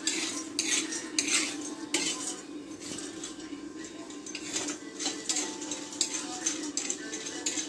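Steel ladle scraping and clinking against a steel kadai as raw peanuts are stirred and dry-roasted over a gas burner, with steel plates and lids clattering. Irregular sharp metal clinks come every second or so over a steady low hum.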